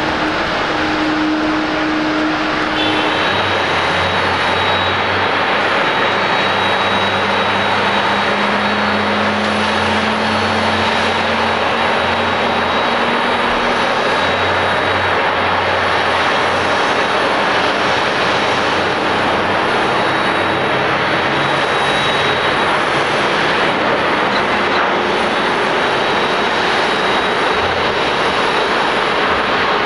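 Jet engine noise of a Japan Airlines Boeing 737-800 landing: its CFM56 turbofans give a steady roar with a thin high whine through touchdown and the rollout. The first few seconds hold the roar of a Boeing 787-8 climbing out after takeoff, until a cut.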